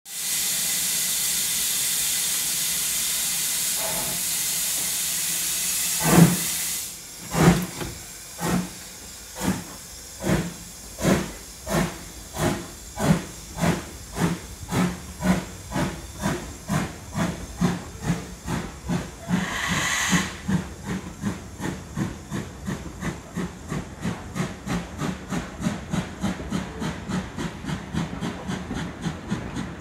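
BR Standard Class 2MT 2-6-0 steam locomotive pulling away from a stand. A steady loud hiss of steam runs for about the first six seconds, then sharp exhaust beats from the chimney come about a second apart and quicken to two or three a second as the train gathers speed, with a brief burst of hiss about twenty seconds in.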